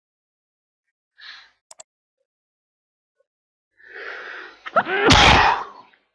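A man sneezes once into his hand, with a breathy intake starting about four seconds in and the loud sneeze just under a second later; a cold is coming on. Two quick double mouse clicks come earlier.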